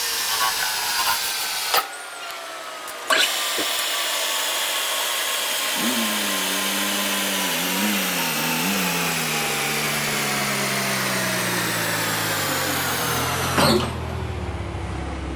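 Power-driven metalworking machine running with a steady high whine of several tones that slowly sink in pitch, with a brief quieter gap near the start framed by sharp clicks and another click near the end. A lower hum comes in about six seconds in, wavers, then sinks.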